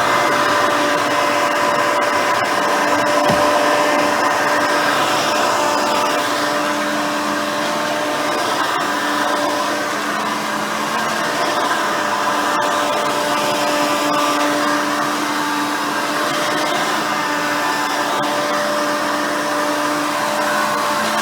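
Hoover Elite 350 upright vacuum, with a 5-amp motor and a seven-blade fan, running steadily. It makes a constant motor whine over a rush of airflow.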